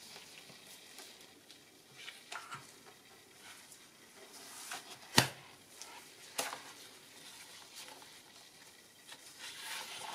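Sheets of glossy printer paper being handled and lifted with gloved hands: soft rustling and sliding, with one sharp tap about five seconds in and a smaller one a second later.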